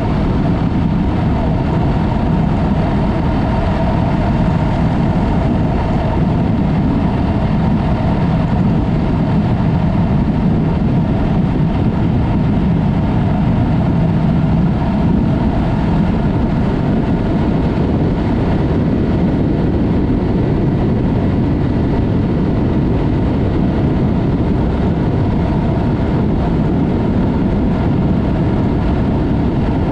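Yamaha MT-03 motorcycle with a Mivv aftermarket exhaust running at a steady cruise, its engine note under heavy wind rush on the microphone.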